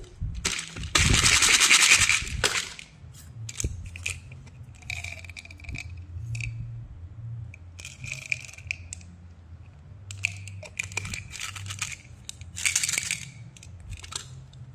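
Plastic candy containers and packaging being handled: a loud rustle about a second in, then scattered scrapes, clicks and rattles as bottle-shaped candies are picked up, their caps twisted and set down.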